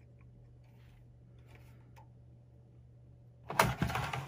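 Metal server parts being handled: a near-quiet stretch with a few faint ticks, then, about three and a half seconds in, a burst of sharp clattering and clicks as the hot-swap power supply module meets the steel chassis.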